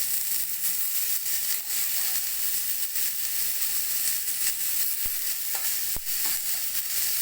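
Oil sizzling steadily in a kadhai as boiled potatoes, onion and chillies fry. There are two short knocks a little after halfway through.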